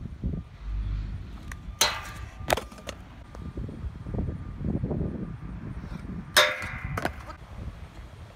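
Stunt scooter clanging against a steel skatepark rail: two pairs of sharp metal clangs that ring briefly, about two seconds in and again about six seconds in, the second pair louder, over a low rumble.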